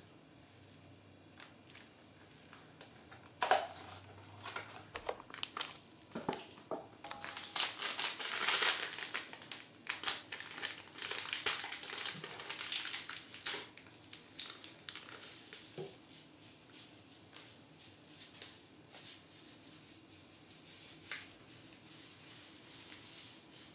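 Crinkling and rustling of a plastic sachet and cardboard packaging being handled and opened, with scattered clicks; the crinkling is densest and loudest about seven to ten seconds in, then fades to quieter rustles.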